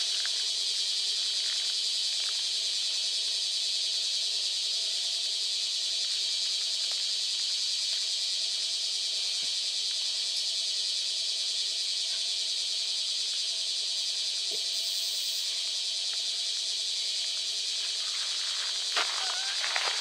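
Cicadas singing in a loud, steady, unbroken chorus.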